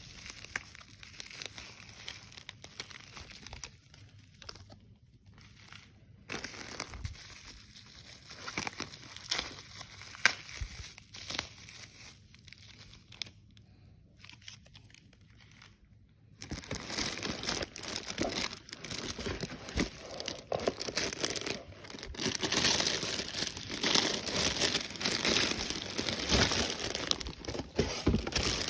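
Packaging being unwrapped and crinkled by hand. Scattered crinkles at first, then denser, louder crinkling from about halfway through.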